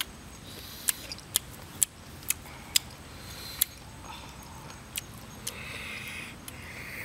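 Several sharp clicks at irregular intervals as hard cooked snail shells knock together and are picked at, with a short slurping suck of snail meat from a shell near the end.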